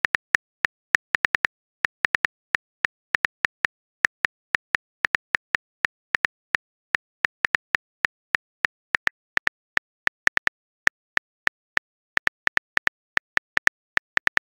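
Smartphone keyboard tap clicks, one short click per letter as a message is typed, about four a second at an uneven pace.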